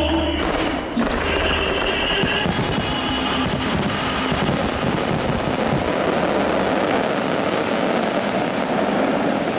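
Fireworks display bursting in quick succession, many sharp bangs and crackles with one sharp bang about a second in, over music.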